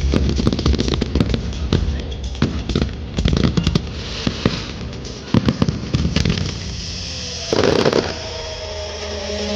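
Fireworks going off in a rapid, irregular string of sharp bangs and crackles, with a denser burst of crackling near the end as music comes in.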